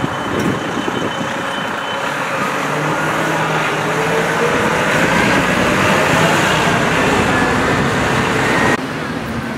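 Large tour coach's engine running as it pulls away, its pitch rising slowly as it picks up speed.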